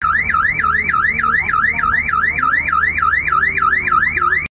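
Vehicle alarm siren on a Brink's armored security van: a loud, fast wail that rises and falls evenly about three and a half times a second.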